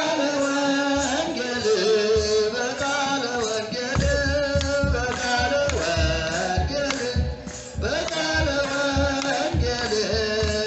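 A group of Ethiopian Orthodox clergy singing a Yaredic hymn together in long, slowly gliding notes. A drum joins about four seconds in, beating a steady rhythm under the singing.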